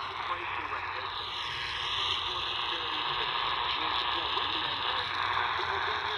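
C.Crane Skywave portable radio on AM 620 kHz playing a weak daytime fringe station. It gives a steady static hiss with a faint voice underneath. The noise swells and dips as the radio is moved about beside the ferrite sleeve loop antenna in search of the gain peak.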